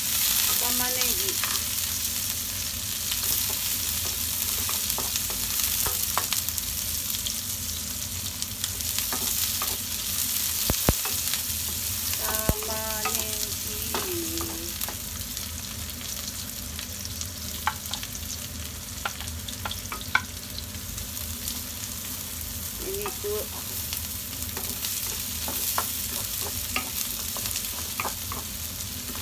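Sliced onions sizzling in hot oil in a frying pan, stirred with a wooden spoon that clicks and scrapes against the pan now and then. The sizzle is steady, with a few sharper knocks of the spoon on the pan.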